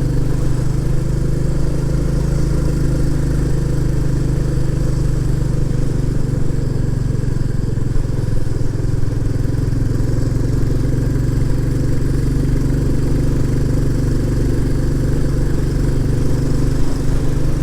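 Royal Enfield Classic 350's single-cylinder engine running steadily as the motorcycle is ridden along at an even pace.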